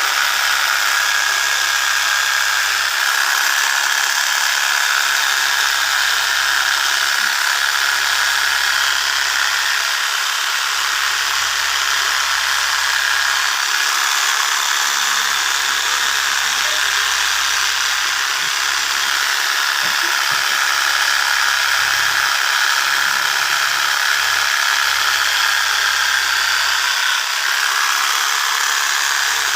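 A small electric motor running steadily, with a constant high whine over a buzzing hiss.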